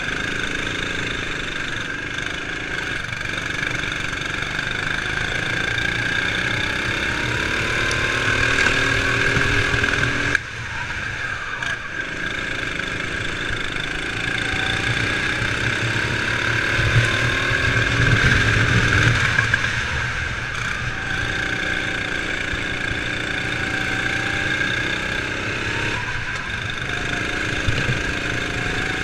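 Sodi RX7 rental kart engine heard onboard, revving up steadily through each straight and dropping off sharply as the throttle is lifted for the corners, about three times; another kart's engine close ahead runs alongside it.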